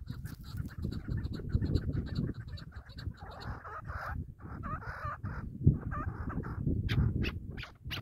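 Chukar partridges calling: a run of clucking calls in the middle, then a quick series of sharp notes near the end. A low rumble, likely wind on the microphone, runs underneath.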